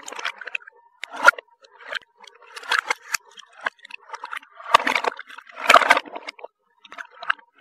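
Small plastic toy cars and construction trucks clattering and rattling against each other and the plastic basket as a hand rummages through them, in irregular clacks with the loudest rattles about five and six seconds in.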